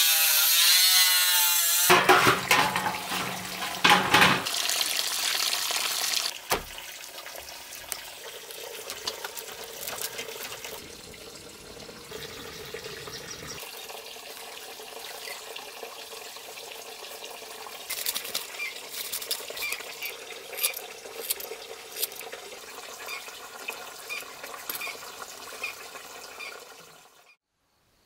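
Angle grinder cutting corrugated metal roofing sheet, loud for the first few seconds. Then a long quieter stretch of handwork binding bundles of broom grass, with scattered clicks and taps, fading out near the end.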